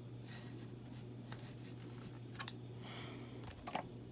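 A few faint clicks and taps from handling a die-cast 1:18 scale model car, over a steady low hum.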